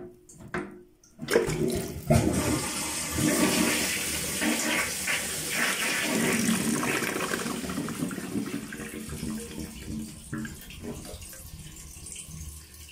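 Water rushing out of a wall-hung toilet cistern down the open outlet as its flush valve is lifted out. It starts after a couple of clicks and fades gradually as the tank empties.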